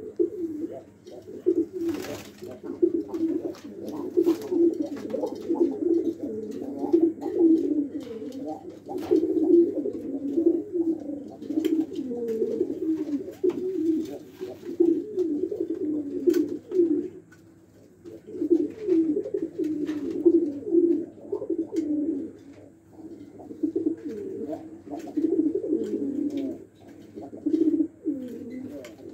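Domestic pigeons cooing continuously, several birds overlapping, with a short lull about two-thirds through and scattered sharp clicks.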